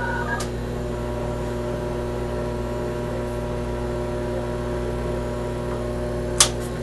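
Steady electrical hum of a siren-system radio repeater still holding its signal after a transmission, heard over the control-room radio: the repeater stays keyed a little longer than it should. A click about half a second in and another near the end.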